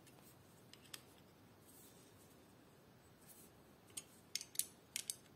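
Faint metallic clicks of a hex key turning a bolt into a Tektro mechanical disc brake caliper: a couple of light clicks about a second in, then a quick run of sharper clicks near the end.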